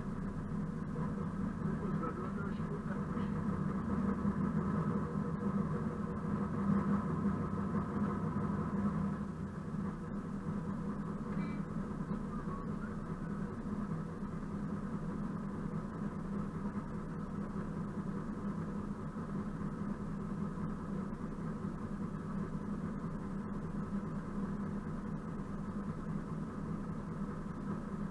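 ČKD class 742 diesel locomotive's engine running steadily while the locomotive is under way. It eases back a little about nine seconds in.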